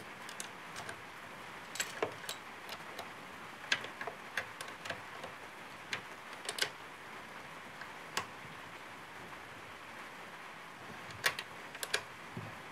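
Light metallic clicks and ticks, irregular and spread throughout, of a small hand tool and fingers working the nut and bolt on a battery terminal as the connection is tightened. There is a pause of a few seconds past the middle.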